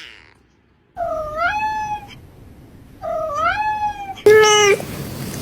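Cat meowing three times: two drawn-out meows, each about a second long, that dip and then rise in pitch, followed near the end by a shorter, lower, steady meow.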